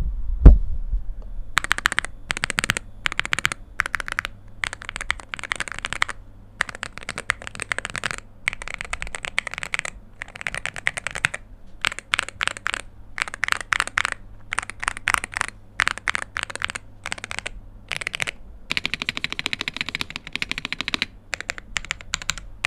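Aula Hero 84 HE keyboard with magnetic Hall effect switches being typed on in fast runs of keystrokes separated by short pauses. A single loud bump comes about half a second in.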